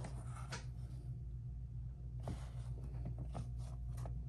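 Faint rustles and light taps of a suede-and-mesh sneaker being handled and lifted off a shelf, a few small knocks from about two seconds in, over a low steady hum.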